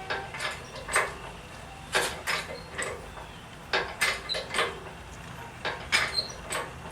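Engine hoist and its chain working under the load of an engine: a run of irregular metallic clicks and clanks, some ringing briefly, while the engine is raised and tilted.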